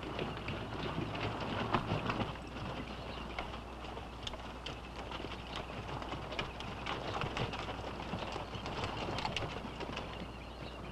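Hooves of several cavalry horses walking on a dirt trail, an irregular clopping of many overlapping steps, over a steady low hum.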